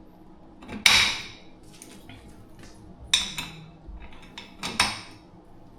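New chair caster wheels and the chair's metal base being handled: a few sharp clatters and knocks of hard plastic and metal. The loudest comes about a second in with a short rattle, and smaller ones come about three seconds in and near five seconds.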